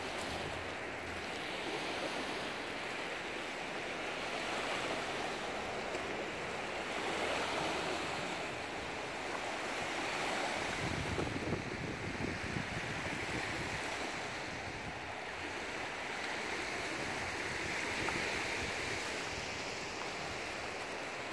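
Small lake waves lapping and washing onto a pebble beach in a steady, surging hiss, with wind on the microphone that is strongest about halfway through.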